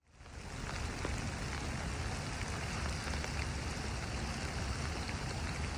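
Steady rain falling: an even hiss with small scattered drop ticks over a low rumble, fading in at the start.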